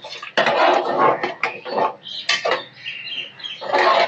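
A metal ladle stirring thick dal round a pressure cooker, scraping and clinking against the sides of the pot, just after a little water has been poured in. The stirring is loudest about half a second in and again near the end.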